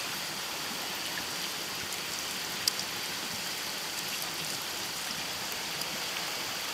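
Mountain stream water rushing steadily, with a single sharp click a little before the middle.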